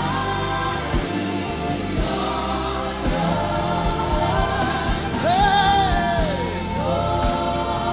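Live gospel worship music: a choir sings long held notes over a band with drums, and a lead voice sings out a long, rising-then-falling 'Hey' about five seconds in.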